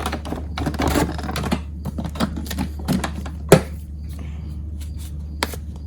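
Plastic vacuum attachments (crevice tool, extension wand and hose end) clicked and knocked together as they are fitted. There are many light clicks, with one sharp knock about three and a half seconds in.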